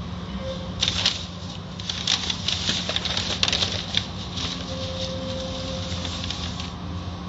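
Soft-cloth strips of an automatic car wash slapping and swishing across the car, heard from inside the cabin: a rapid, irregular patter of slaps from about a second in until near the end, over a steady low hum.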